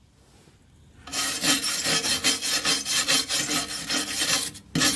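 Quick back-and-forth scrubbing on the metal side of a snow blower's housing, cleaning the skid shoe mounting area. The rasping strokes start about a second in, run fast and even, and stop just before the end with one last short stroke.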